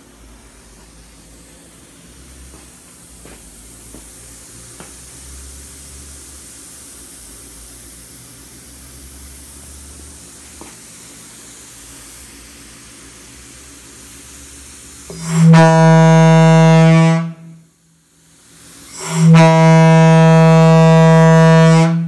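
Leslie Tyfon locomotive air horn blown twice on compressed air through a hand ball valve. It gives two loud blasts of one low steady note rich in overtones, about two and three seconds long, each starting and cutting off sharply. Before the blasts there is only a faint low hum and a few light clicks.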